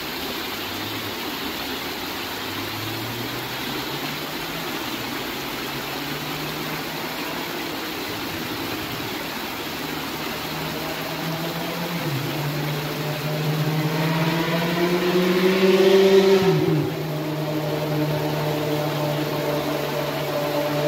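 Rushing rocky stream flowing steadily, with a motor vehicle's engine hum rising in pitch and growing louder over it. The engine is loudest about sixteen seconds in, where its pitch drops sharply, then runs on at a steady pitch.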